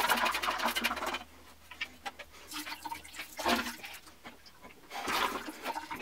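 Rinse water sloshing and splashing out of a PC watercooling radiator as it is shaken and tipped to drain. The water comes in uneven gushes: one that stops about a second in, then two more later, with quiet gaps between.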